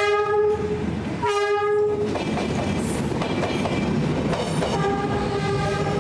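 Passenger train's horn sounding two long blasts with a short break between them, then the train rumbling and clattering over the rails as it passes close by. A fainter horn blast comes near the end.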